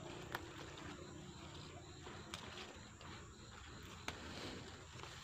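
Climbing green beans being picked by hand: faint rustling of the vine leaves, with three sharp snaps as pods are pulled off their stems.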